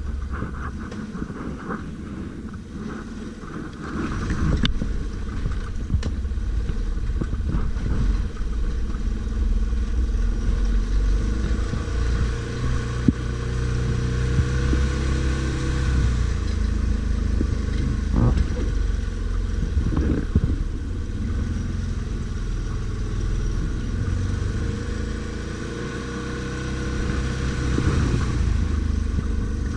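ATV engine running under changing throttle while riding off-road, its pitch rising and falling, with a few sharp knocks and clatter along the way.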